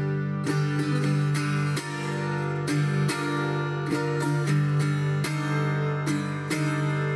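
Viola caipira, the ten-string Brazilian folk guitar, played solo in Rio Abaixo tuning: a plucked melody in quick notes over low open strings that ring on underneath.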